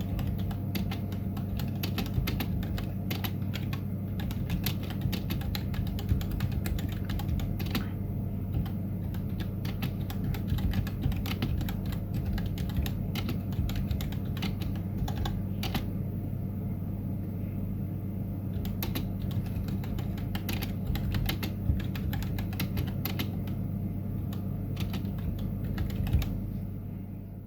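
Typing on a Womier K66 mechanical keyboard with Gateron Red linear switches: a steady, irregular stream of keystroke clacks. The sound fades out near the end.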